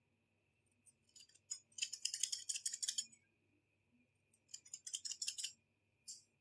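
Hair-cutting scissors snipping through hair as a fringe is trimmed: two runs of quick, crisp snips, each lasting one to two seconds, then one brief snip near the end.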